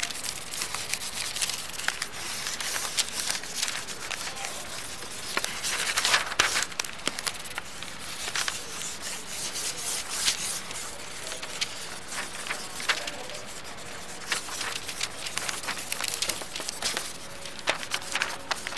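A drawing tool scratching and rubbing across paper in quick, irregular strokes.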